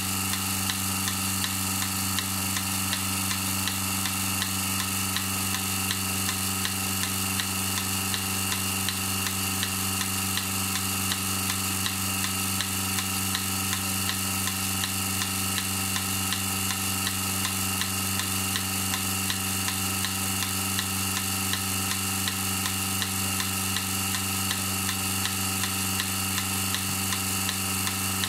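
Portable cow-milking machine running: the vacuum pump's steady hum with the pulsator's regular clicking over it.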